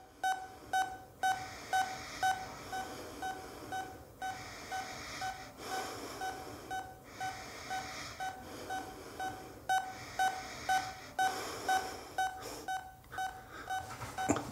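Hospital ECG heart monitor beeping, with a short single-pitched beep repeating evenly about twice a second over a soft background hiss.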